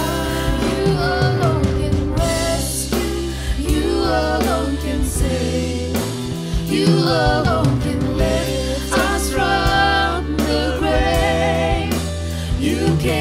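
Worship band music: several voices singing a slow Christian worship song in long, wavering lines over sustained instrumental chords.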